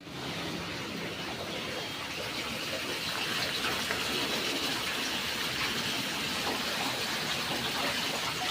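Steady rush of running water, gushing evenly and growing slightly louder.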